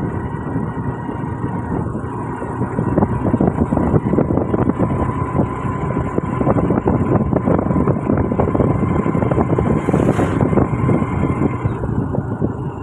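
A vehicle driving along a road: steady engine and road noise with gusty wind rushing over the microphone, and a brief hiss about ten seconds in.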